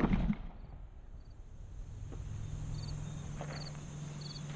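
The echo of a .223 Remington rifle shot dying away in the first half-second, then insects chirping in short, evenly spaced pulses, with a steady low hum from about two seconds in.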